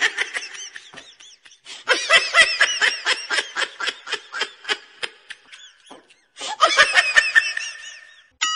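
Rapid, repeated laughter in three bursts, each a quick run of 'ha-ha' pulses. Just before the end, a wobbling boing-like tone begins.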